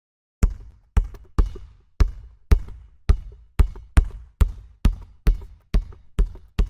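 Basketball being dribbled on a hard court: a steady rhythm of bounces, about two a second, each a deep thud with a short echoing tail, starting about half a second in.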